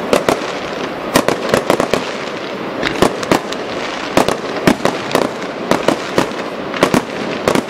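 Fireworks display: aerial shells bursting in a rapid, irregular series of sharp bangs, two or three a second, over a continuous noisy background.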